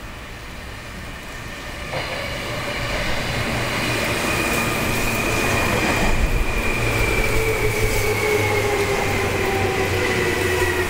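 Seibu 2000-series electric train arriving and slowing: wheels rumbling on the rails, growing louder as it comes close, with two whines that fall steadily in pitch as it brakes.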